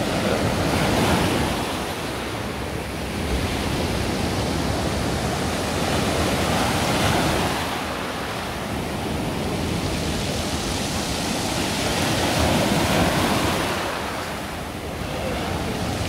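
Sea surf breaking and washing up over a pebble shore, the rush of water swelling and easing about every six seconds.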